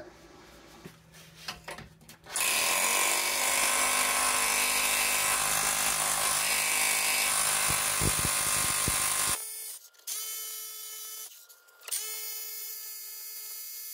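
Electric SDS rotary hammer with a chisel bit hammering on a corroded, seized Subaru rear wheel bearing hub: a loud steady rattle starting about two seconds in and lasting about seven seconds, then two shorter, quieter runs with a steady whine.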